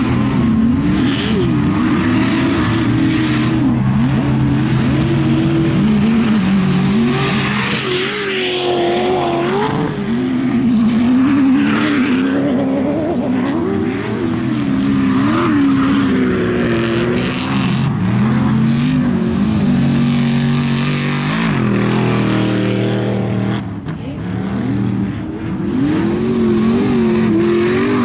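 Off-road racing trucks and buggies driven flat out, their engines revving up and falling back over and over as they power along the dirt course.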